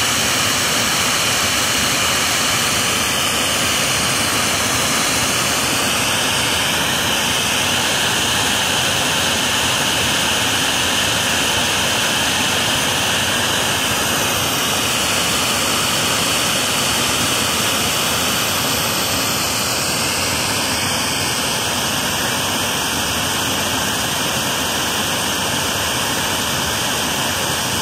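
Compressed air rushing steadily out of the open end of a fiber-optic duct during fiber blowing, a loud, even hiss. It is the airflow that carries the cable through the duct toward the handhole.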